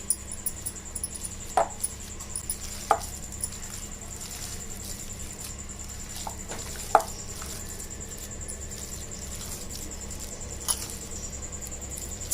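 Mashing and mixing boiled potato with grated cheese in a bowl: soft squelches and scattered light taps and clicks of the utensil against the bowl, over a steady low hum.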